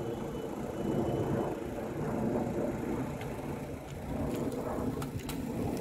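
Wind buffeting the microphone, with a few sharp clicks about four to five seconds in as a pack of road bicycles sweeps past.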